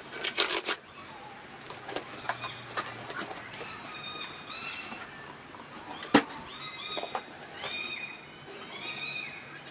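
A cardboard gift box being handled and opened, with a few sharp knocks, the loudest about six seconds in, while birds chirp repeatedly in the background.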